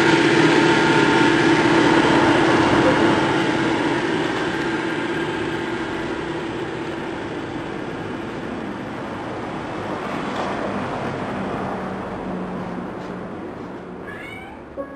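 Live experimental electronic noise music played on small devices patched together with cables: a dense wash of noise with several steady droning tones, loudest at the start and slowly fading. Near the end, short gliding tones come in.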